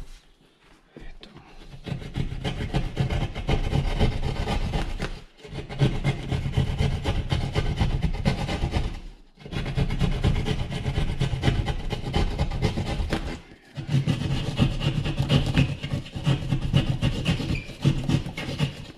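Hand drywall jab saw rasping back and forth through the edge of a drywall opening, widening a hole that is too small for the in-wall cable box. The quick strokes come in four runs with short breaks between.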